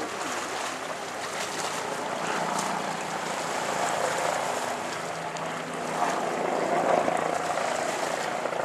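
Steady low hum of a boat's engine under a wash of water and wind noise on the microphone, swelling a little about six seconds in.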